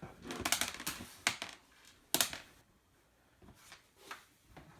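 Plastic clicks and knocks from a laptop being handled and tipped over: a quick rattle of clicks, two sharp knocks, the second the loudest, then a few faint clicks near the end.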